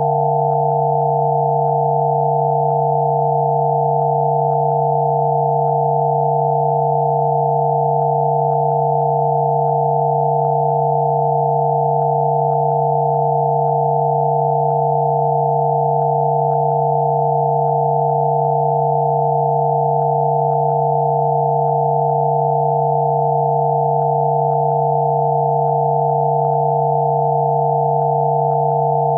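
Several steady pure electronic sine tones sounding together, a low hum with a cluster of higher tones above it, with no change in pitch or loudness: a generated Rife frequency therapy tone.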